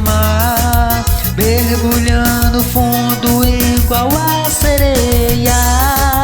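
Forró song playing: a sliding, held melody line over a strong bass and a steady beat.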